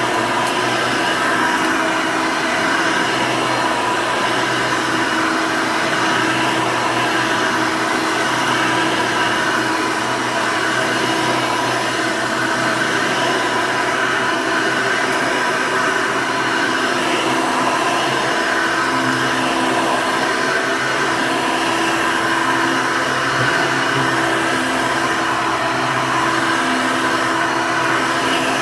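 Hoover Elite II upright vacuum cleaner running steadily: a constant rush of air with a steady motor whine whose pitch wavers slightly.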